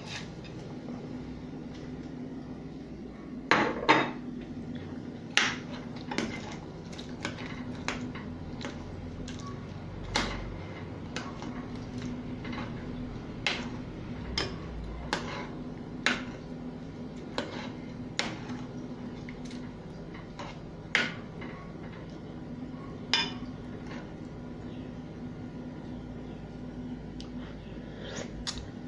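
Cooking utensil knocking, clinking and scraping against a cooking pot as onion and pepper go in and are stirred, with irregular knocks every second or two, the loudest cluster about four seconds in. A steady low hum runs underneath.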